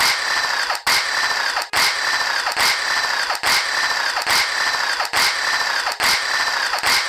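Tool noise from work on a Toyota 3ZZ engine's oil sump: a steady grating noise in repeated strokes, broken by short pauses a little under once a second.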